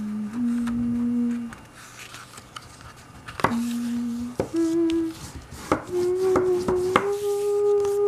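A person humming a slow tune in long held notes, with a pause of a couple of seconds, while card stock is folded and creased by hand, giving sharp taps and paper rustles in the second half.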